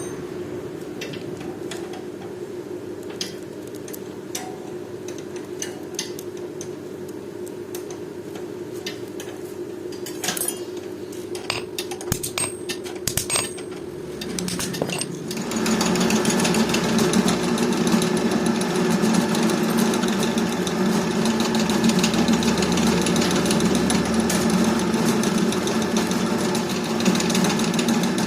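A steady low machine hum with scattered short knocks; about halfway through, a louder power-driven workshop machine starts up and runs steadily.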